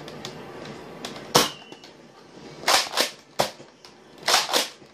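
Nerf Mega Magnus spring blaster firing Mega whistler darts. A sharp pop about a second in is followed by a short whistle from the dart in flight. Then comes a run of further sharp plastic clacks and pops as the blaster is worked and fired again.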